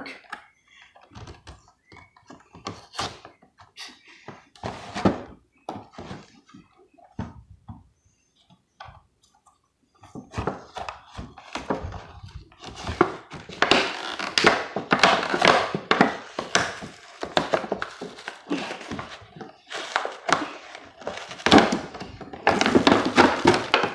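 Toy packaging being worked open by hand: scattered light knocks and clicks, then from about ten seconds in a dense stretch of noisy handling and tearing sounds.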